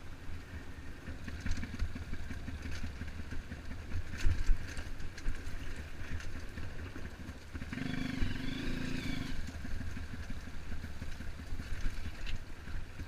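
Trail motorcycle engine running at low revs over rough ground, with a few knocks and rattles about four seconds in and a brief wavering higher note around eight seconds in.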